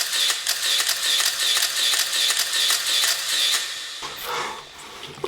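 Rapid mechanical clicking, like a ratchet, with a brighter chirp repeating about three times a second; it stops about three and a half seconds in, leaving a fainter noise.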